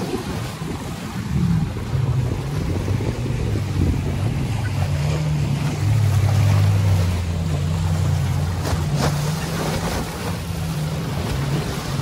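Jet ski engine running out on choppy water, its pitch wavering up and down as the throttle changes and loudest about six to eight seconds in. Waves wash against a seawall and wind buffets the microphone underneath.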